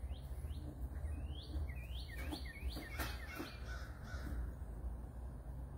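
Birds calling: a run of short rising chirps about twice a second, with a burst of quick falling notes from another bird in the middle, over a low steady rumble.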